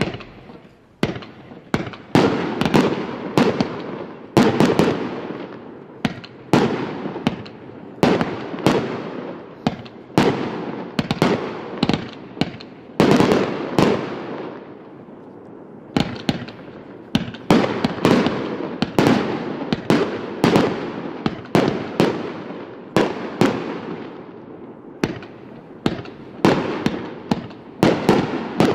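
Firework battery (a 418-shot compound cake) firing: a dense run of sharp bangs, often several a second, each trailing off in a fading hiss.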